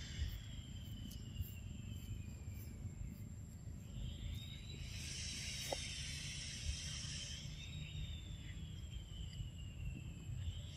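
Insects droning in the background, a high tone that slides slowly down in pitch and swells again midway through, over a steady low outdoor rumble.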